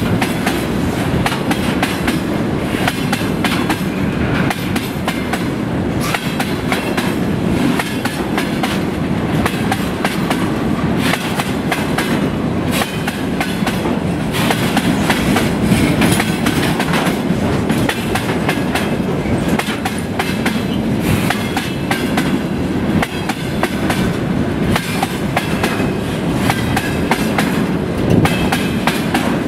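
Railway tank cars of a freight train rolling past close by: a steady loud rumble with the wheels clattering over the rail joints in repeated clicks.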